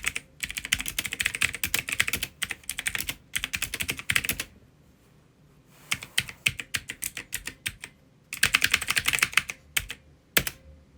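Fast typing on a Logitech G512 SE mechanical keyboard with Logitech GX Blue clicky switches, a rapid run of sharp key clicks. It comes in bursts, with pauses of a second or two between them, and is really clicky and quite loud.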